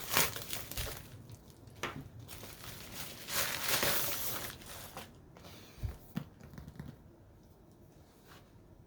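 Packaging being torn open and crinkled by hand, in several rough bursts, with two short knocks about six seconds in before the rustling dies down to light handling.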